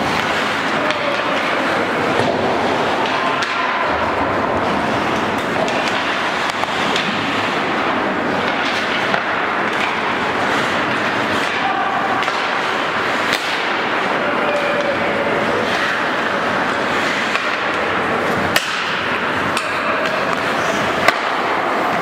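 Ice hockey play in a rink: a steady scraping wash of skates on ice, with players' short shouts and a few sharp clacks of sticks and puck, the loudest near the end.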